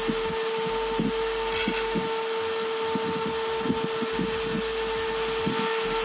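Large PC cooling fan running at full speed on a homemade transistor speed controller: a loud rush of air with a steady whine, and scattered soft knocks through it.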